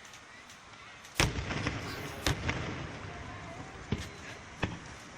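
Fireworks bursting: a loud bang about a second in, a second bang a second later, then two fainter bangs near the end, each trailing off in a rumble.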